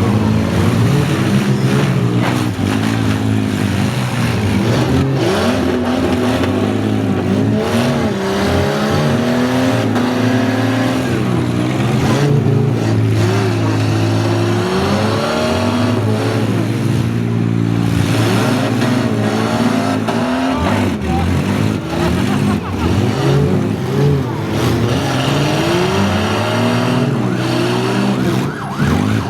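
Several derby car engines in minivans, SUVs and small trucks running together, revving up and down over each other.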